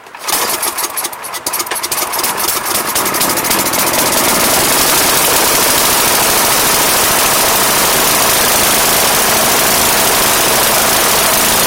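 Tecumseh 8.5 hp flathead single-cylinder engine on a snowblower starting up at once. It runs unevenly for the first few seconds, then settles into a steady loud run: a warm-up to heat the oil before an oil change.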